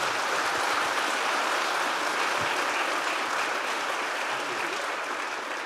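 Audience applauding steadily, easing off a little near the end.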